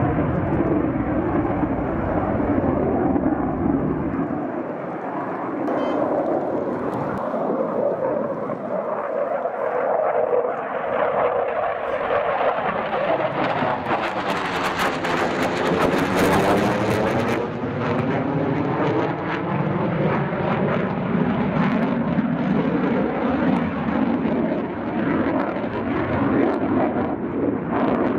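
A JF-17 Thunder fighter's single RD-93 turbofan in flight, a loud, continuous jet noise. About halfway through, as the jet passes close, it swells into a strong hiss with a sweeping, phasing tone that dips and rises again.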